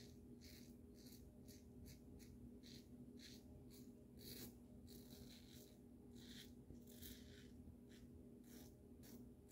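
Double-edge safety razor, the Parker 78R, scraping through lathered stubble in short, faint strokes, about two a second, over a low steady hum.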